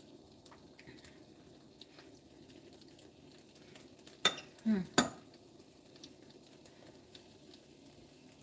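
Two sharp clinks of a metal fork against a ceramic plate, a little under a second apart about halfway through, with a short low falling sound between them, over a faint steady hum.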